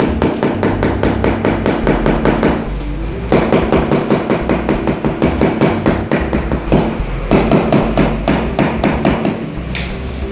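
Rubber mallet tapping a floor tile rapidly, several blows a second, to bed it level on the mortar, with short breaks. Background music plays underneath.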